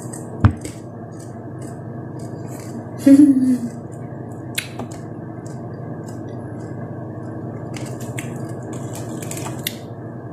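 Eating sounds of a person picking apart and chewing crisp fried sardines by hand: scattered soft clicks and smacks over a steady low hum, with a short falling vocal sound about three seconds in.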